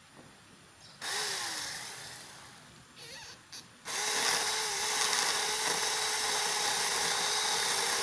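Bull cordless mini chainsaw's electric motor: a short burst about a second in that coasts down with falling pitch, two brief blips, then from about four seconds in it runs steadily at full speed.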